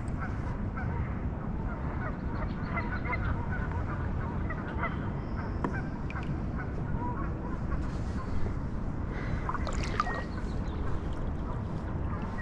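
Birds calling in short scattered notes, most around ten seconds in, over a steady low rushing noise.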